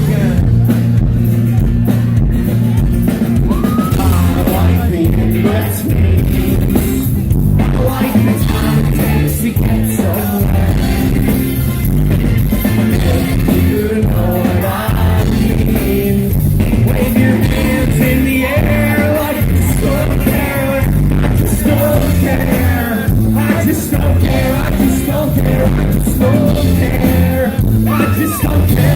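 Rock band playing a song live, with singing over the band.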